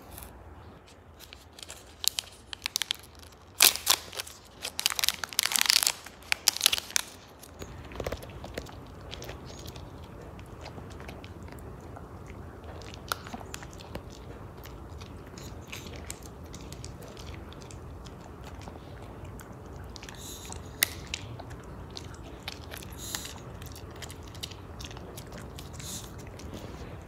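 A Maltese dog chewing and crunching a hard dental chew, with irregular crunches in two spells: the loudest a few seconds in, and another later on.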